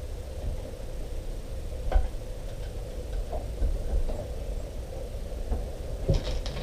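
Faint clicks and small knocks of motorcycle fork parts being handled, over a low steady rumble, with one sharper click about two seconds in and a brief scraping near the end.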